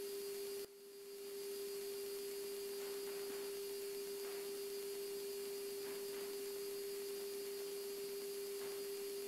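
A steady single-pitch electrical hum carried in the cockpit radio/intercom audio feed between radio calls, over faint hiss. It cuts out briefly under a second in and fades back up.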